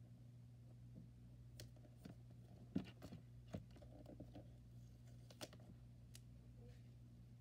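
Faint scattered taps and small paper-handling clicks as fingers press little paper hearts down onto a notebook cover, the sharpest tap about three seconds in, over a steady low hum.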